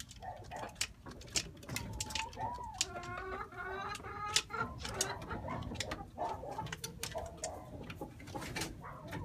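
Chickens clucking, with one longer drawn-out call about three seconds in, over scattered sharp clicks and taps.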